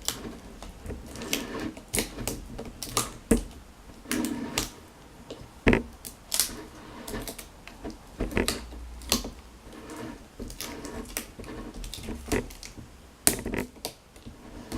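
Clear adhesive tape being pulled off the roll and wrapped around a plastic glue bottle to patch its cut tip, with irregular clicks, crackles and small knocks of handling.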